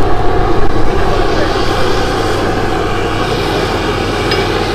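Steady roar of a gas-fired forge burner running, with a constant low hum beneath it.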